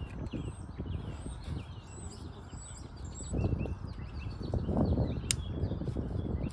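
Birds chirping in quick, repeated short calls, over low rustling and handling noise from hands working in an engine bay that swells twice, with one sharp click about five seconds in.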